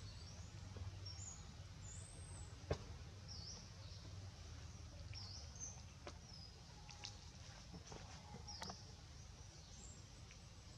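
Faint outdoor ambience with scattered short, high bird chirps over a low steady rumble. A single sharp click comes about three seconds in.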